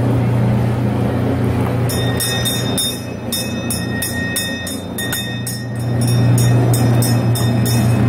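Small bell on a kiddie-ride boat rung rapidly, about four strikes a second, starting about two seconds in and running until near the end, over a steady low hum.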